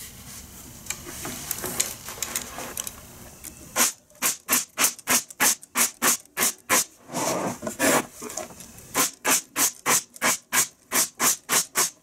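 Pneumatic air stapler firing staples through the wooden bottom bars into the side bars of beehive deep frames. It fires in a fast run of about twenty sharp shots, roughly three a second, in two bursts with a short pause between them. Before the shots, the first few seconds hold only faint handling noise.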